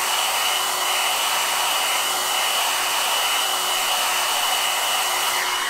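Handheld hair dryer blowing steadily: a loud, even rush of air with a faint high steady whine from its motor.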